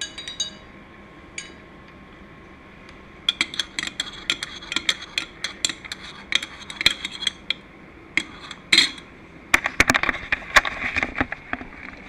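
Metal thermometer probe clinking and tapping against a drinking glass of cold water set in an ice bath while the temperature is checked: a quick run of light, ringing clinks starting about three seconds in, and a denser patch of clinks and scraping near the end.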